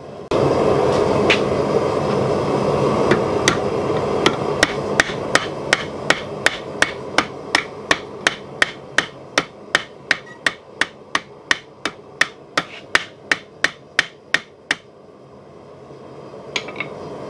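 Blacksmith's hammer striking hot steel on an anvil in quick, even blows, about three a second, flattening the forged bottle opener and knocking off scale at the end of a heat. A steady rushing noise comes in abruptly at the start and fades away under the blows. The hammering stops about fifteen seconds in, followed by a few faint taps.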